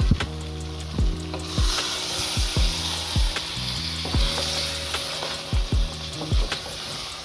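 Food frying and sizzling in a pan, the sizzle swelling from about a second and a half in. Under it runs background music with a deep kick-drum beat and a low bass line.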